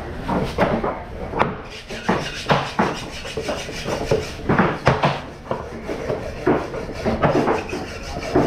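Large knife chopping golden trevally into chunks on a thick wooden block: a series of irregularly spaced knocks as the blade cuts through the fish and strikes the wood.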